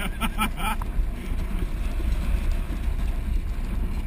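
Luge cart rolling fast down a concrete track: a steady low rumble of its wheels on the concrete.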